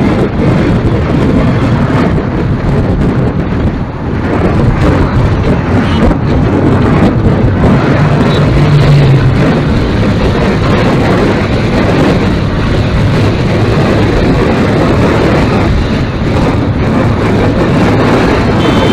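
Steady wind rush on the microphone mixed with road and engine noise from a moving vehicle, with a brief low drone about eight seconds in.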